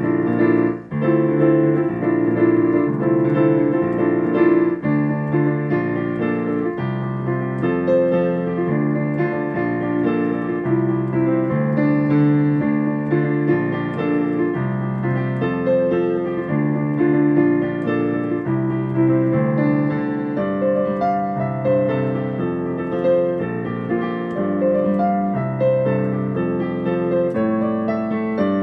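Piano playing, with a repeating low figure under a higher melody; the sound drops out for a moment about a second in.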